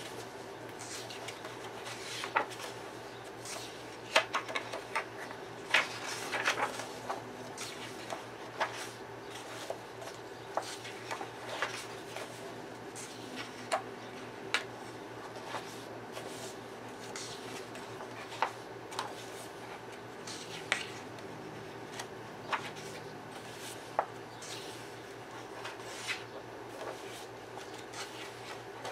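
Paper pages of a coloring book being turned by hand: rustling, with sharp flicks and taps at irregular intervals, busiest a few seconds in.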